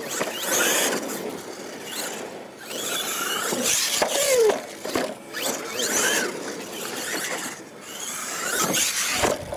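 Radio-controlled monster truck's motor whining up and down with the throttle, with a few knocks as the truck tumbles about four seconds in.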